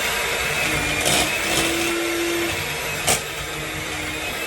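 Electric mixer running steadily while mashing cooked potatoes, a constant motor whirr with a thin whine, broken by a few sharp knocks.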